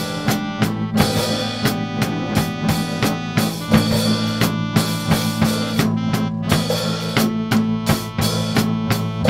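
Background music: a band track with a drum kit keeping a steady beat over held instrumental tones.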